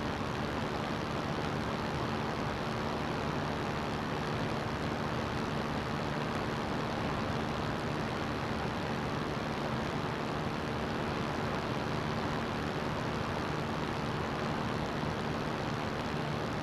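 CGS Hawk ultralight's engine and propeller running steadily with a constant drone, mixed with a steady rush of wind noise.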